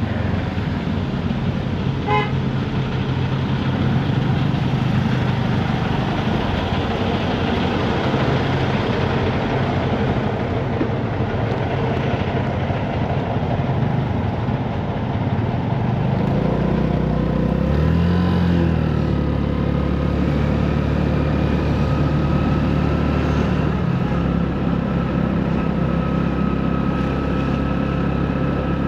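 Honda Navi's small single-cylinder engine running through city traffic, its note shifting about two-thirds of the way through. A car horn toots briefly about two seconds in, and a steady high tone holds through the second half.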